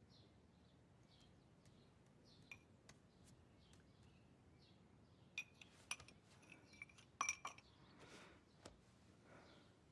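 Faint clinks of a ceramic spoon against a dish: a cluster of light taps in the second half, over faint, repeated bird chirps.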